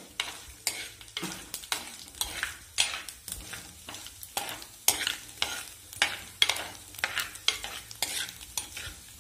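Chopped coconut pieces frying in hot oil with a steady sizzle, stirred with a stainless steel ladle that scrapes the pot about twice a second.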